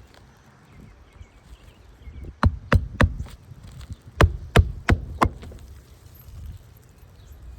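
Roofing hatchet driving nails through an asphalt shingle to fasten it back down: seven sharp strikes, three quick ones, then a short pause and four more.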